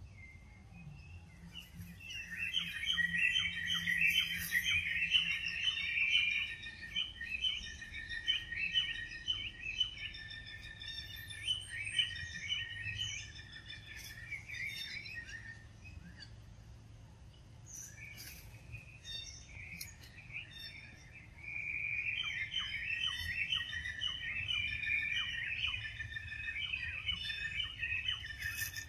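Birds chirping in a rapid, dense chatter of short high notes. It comes in two long stretches with a thinner, quieter gap near the middle.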